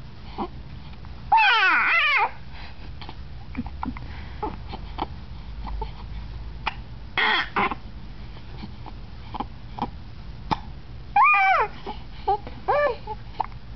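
A baby with the hiccups makes high-pitched, falling vocal sounds, half squeal and half cry, in about four bursts. The longest and loudest comes about a second and a half in, and the others come near the middle and near the end. Short, faint hiccup clicks fall between them.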